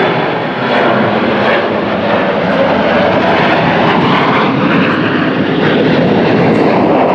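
Loud, steady engine noise from a jet airliner at close range, with a faint high whine in the first second or so.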